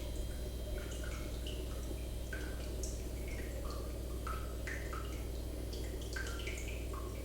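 Water drops plinking, several a second at varying pitches, over a steady low hum.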